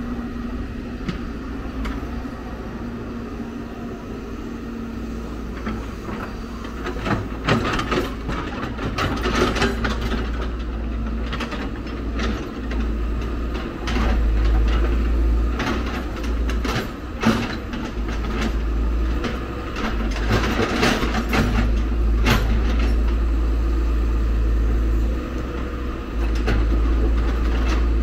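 Hyundai R170W wheel excavator's diesel engine running with a steady low rumble. Through the middle come repeated sharp scrapes and knocks as the steel bucket digs into soil and stones.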